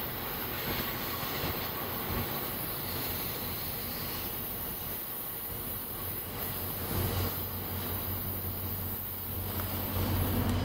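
Diesel locomotive of a passenger train running at a distance, a steady low rumble that grows louder near the end as the train approaches.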